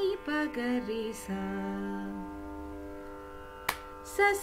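Female voice singing the descending Hamsadhwani scale in Carnatic sargam syllables, "sa ni pa ga ri sa", stepping down and ending on a low sa held until about two seconds in, over a steady drone that then carries on alone. A single sharp click near the end.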